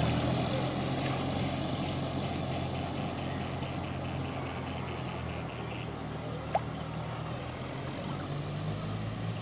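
A jeep's engine running steadily as it drives away through floodwater, with the rush and splash of water thrown up by its wheels, both slowly fading. One short sharp click about six and a half seconds in.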